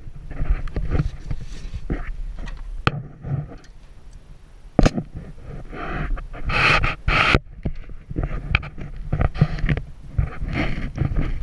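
Wind buffeting the action-camera microphone, with scattered knocks and scrapes from a small shark being held and unhooked on a pontoon boat's deck. A louder hissing rush comes about six to seven seconds in.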